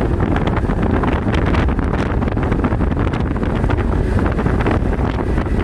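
Wind rushing and buffeting against the microphone over the steady low rumble of a moving vehicle.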